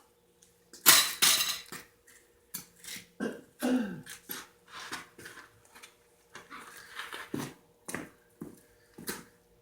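Irregular metal clanks, clinks and scrapes from foundry tools and crucible being handled, with a louder scrape about a second in and a faint steady hum underneath.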